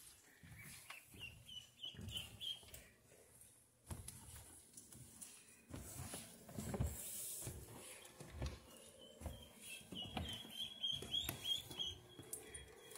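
Ducklings peeping: short runs of quick, high peeps about a second in, and again more steadily over the last few seconds. Footsteps thud on carpeted stairs in between.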